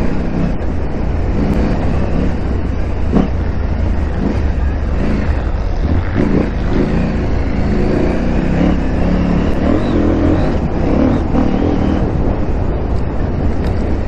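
KTM 890 Adventure R's parallel-twin engine running under way off-road, its pitch rising and falling with the throttle over a steady low rumble, with a few short knocks from bumps.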